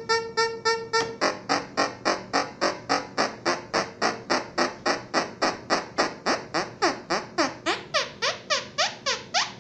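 SN76477 complex sound chip in repetition mode, its VCO sounding a synthetic beep about four times a second. About a second in, the beeps turn brighter. In the last couple of seconds each beep falls in pitch.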